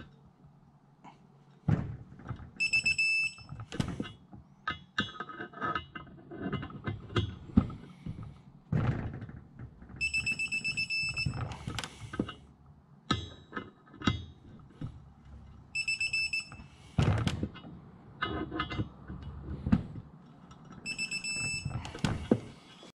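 Digital torque wrench ratcheting and clicking on connecting-rod bolts on a Subaru EG33 crankshaft, with a rapid high beeping four times, about a second each, the wrench's signal that the set torque is reached.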